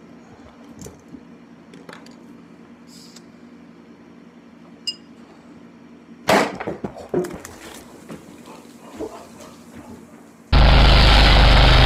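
Sparkling-wine bottle being opened by hand: faint clicks from the foil and wire cage, then about six seconds in a sharp pop of the cork followed by a second of knocks and clatter. About ten and a half seconds in, a sudden loud, steady noise starts and runs on.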